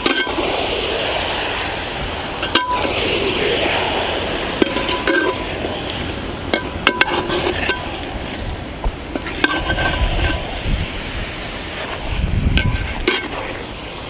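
Goat meat and masala being stirred with a metal ladle in a large metal pot, the ladle scraping and knocking against the pot at irregular moments over a steady sizzle as the meat fries dry without water.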